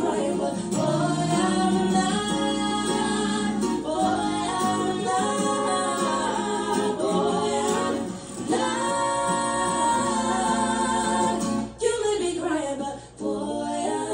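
Female vocal trio singing a cappella, several voices holding sustained notes together in close harmony, with brief breaks between phrases at about eight seconds and again near the end.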